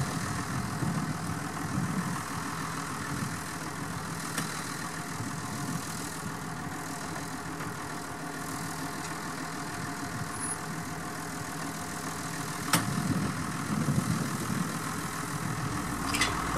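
Farm tractor's diesel engine idling steadily while standing still, with one sharp click about thirteen seconds in.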